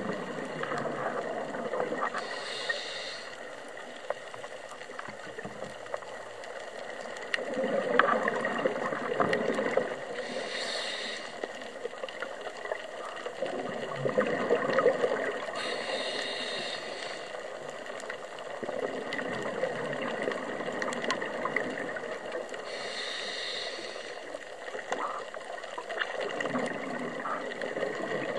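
Scuba diver breathing through a regulator underwater: four short hisses of inhalation, roughly every six to seven seconds, with the rushing, gurgling bubbles of exhaled air between them.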